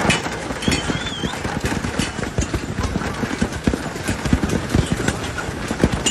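Large hailstones pelting hard surfaces: a dense, irregular clatter of impacts that goes on without a break.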